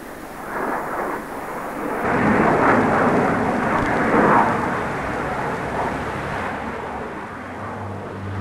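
Jet aircraft noise on an airport apron: a rushing, rumbling engine sound that swells about two seconds in, then slowly eases off.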